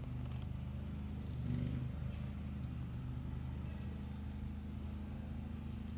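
A steady low engine drone, briefly louder about one and a half seconds in.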